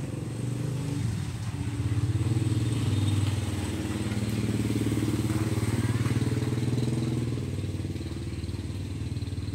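A small engine running with a low, fast putter, growing louder about two seconds in and easing off near the end.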